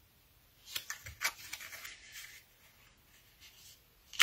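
Pieces of patterned paper and cardstock handled and laid down by hand: a few light taps and rustles about a second in, then a sharp tap near the end.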